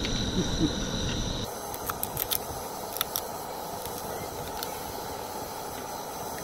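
A low rumble for the first second and a half, then a steady hiss from a canister camp stove burning under a pot of crab. Over the hiss come a few sharp clicks as crab shell is cracked and eaten.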